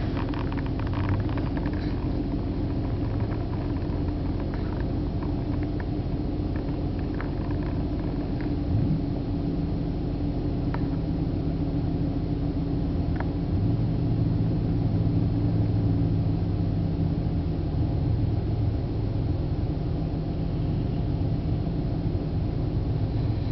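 An engine running steadily at idle, a low even rumble, with a few faint clicks in the first half.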